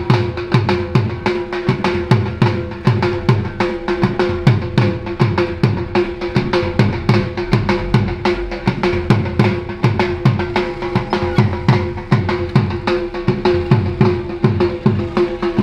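Dhol, a double-headed barrel drum, played in a fast steady rhythm: deep bass strokes that drop in pitch, about three a second, with quicker sharp stick hits between them. A steady tone is held underneath.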